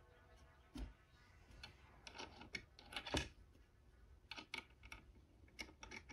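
Faint, scattered metal clicks and taps of a washer and wing nut being fitted onto a threaded steel stud on a plywood board.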